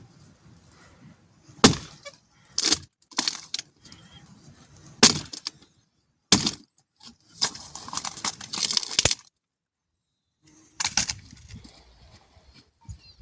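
A series of sharp cracks and snaps, about six separate hits, with a longer crackling stretch about eight seconds in.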